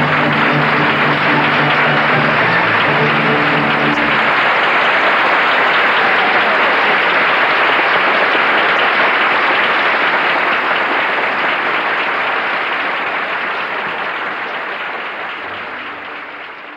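Audience applauding, with music holding steady notes under it for the first four seconds before stopping. The applause then goes on alone and fades away over the last several seconds.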